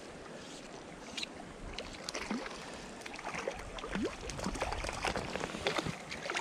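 Fly line stripped in by hand in short pulls, giving quick rising squeaks and ticks through the rod guides over the hiss of running creek water, busier from about two seconds in, with light splashing.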